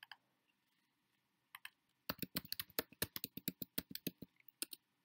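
Typing on a computer keyboard: a click at the start and a couple of keystrokes about a second and a half in, then a quick run of many keystrokes from about two seconds in until shortly before the end.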